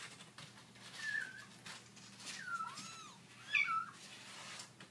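Young kittens mewing: several short, high-pitched cries that rise and fall, the loudest near the end.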